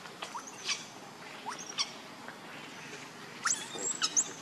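Infant macaque giving short, high-pitched squeaks, each a quick upward sweep, repeated at irregular intervals, with a louder cluster of calls near the end.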